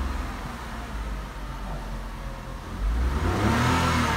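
Tata Tiago's 1.2-litre three-cylinder engine revved with the car standing still, heard inside the cabin. The revs climb about three seconds in and the engine gets louder.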